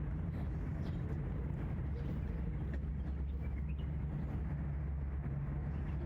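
Steady outdoor ambience: a low, even rumble of distant traffic with a few faint ticks.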